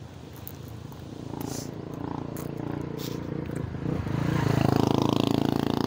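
A vehicle engine's low hum, growing steadily louder as it approaches and loudest near the end.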